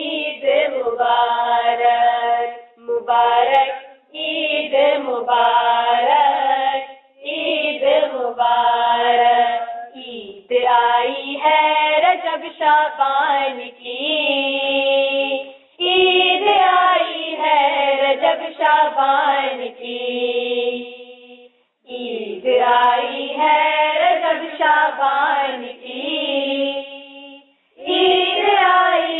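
Girls' voices singing an Urdu manqabat (devotional song) without accompaniment, in sung phrases a few seconds long with short breath pauses between them.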